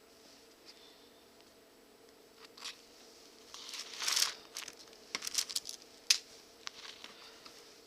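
Leather rustling and rasping as it is handled and stitched by hand, with a longer rasp about four seconds in and a few sharp clicks a second or two later.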